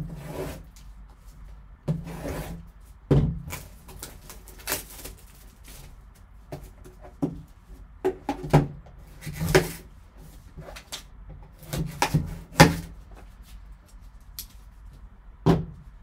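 Cellophane shrink wrap being slit with a knife and pulled off a sealed trading card box: a string of short, irregular crinkling and scraping rustles.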